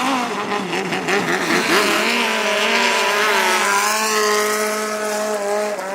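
Thai longtail racing boat engine running at high revs. Its pitch wavers for the first couple of seconds, then holds fairly steady.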